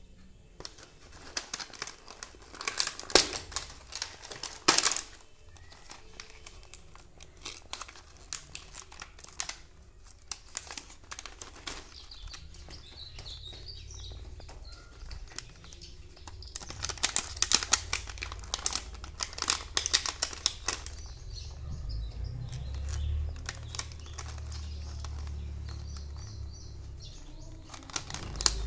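Clear plastic blister pack of doll accessories crinkling and crackling as it is handled, in irregular clusters of sharp crackles. A low hum sits underneath in the second half.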